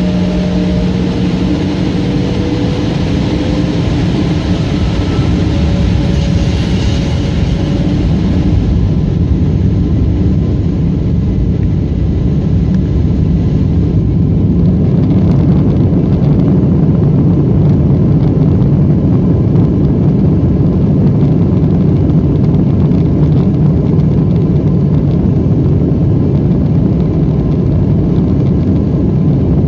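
Twin turbofan engines of an Embraer E175 jet heard from inside the cabin during the takeoff roll: a slowly rising engine hum over the first several seconds, then a steady loud roar that grows a little louder midway as the jet accelerates.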